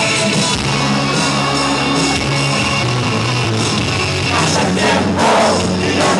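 Loud rock music over a hall's sound system with a man singing live into a microphone; the singing grows stronger about four seconds in.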